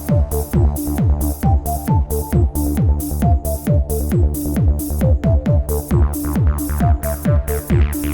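Background electronic dance music with a steady driving beat of about two strokes a second and a short-note synth melody.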